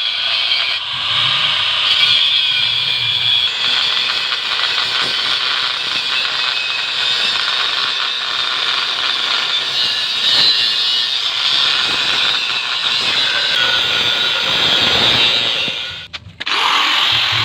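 A power tool cutting into the steel shell of a refrigerator compressor, running steadily with a high-pitched grinding. It briefly stops near the end, then starts cutting again.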